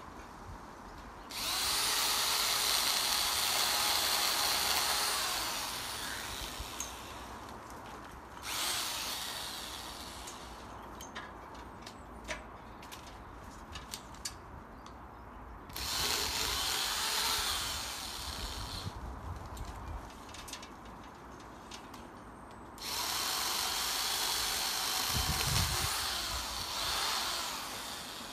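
MacAllister MPS750S-2 electric pole saw running in four bursts of a few seconds each, the second one brief, as it cuts oak branches overhead. The motor and chain make a high whine.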